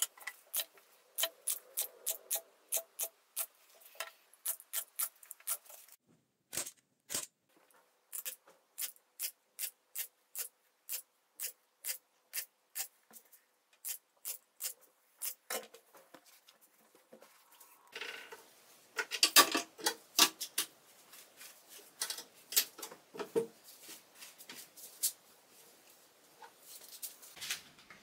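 Upholstery staple gun firing over and over into a chair seat: sharp, evenly spaced clicks, about three a second, with short pauses. About two-thirds of the way through come louder, denser snaps with the rustle of fabric being handled.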